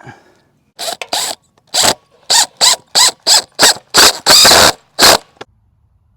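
Quick scraping or rubbing strokes, about three a second, with one longer stroke a little past the middle, stopping about a second before the end.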